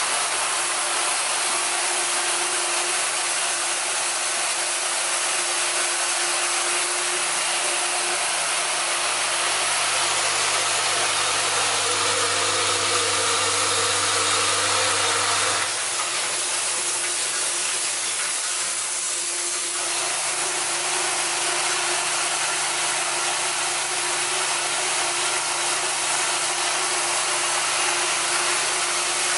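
Washer assembly machine running, its vibratory bowl feeders humming while the metal washers in them rattle and hiss in a steady dense clatter. The low hum changes about halfway through and settles again a few seconds later.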